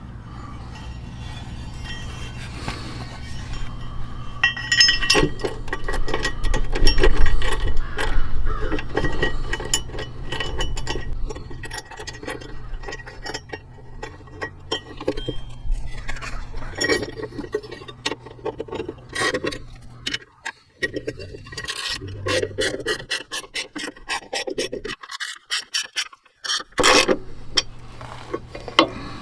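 Metal scraping, rubbing and clinking as a bolt is worked into a nut to fasten a steel running-board bracket to the truck body, with many irregular sharp clicks and scrapes.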